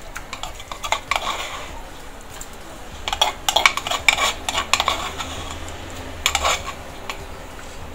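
A metal spoon scraping and clicking against the inside of a mortar as ground ginger and garlic paste is scooped out onto the meat. It comes in three spells, the busiest from about three to five seconds in.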